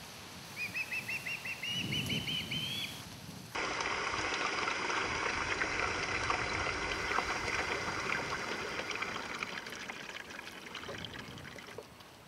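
A songbird singing a quick trill of about a dozen upslurred notes that climbs in pitch. About three and a half seconds in, the sound cuts abruptly to a steady hiss of running water, which slowly fades.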